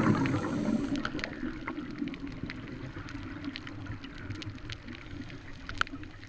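Heard underwater through a GoPro housing: scuba regulator exhaust bubbles gurgling and fading out over about the first second, then a low steady underwater hush with scattered faint clicks.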